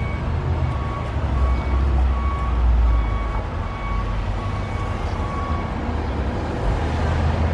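Steady low rumble of vehicle engines running, with a faint short beep repeating about once a second.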